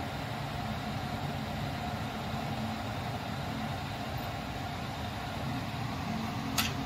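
Steady low machine hum, with a single light click near the end.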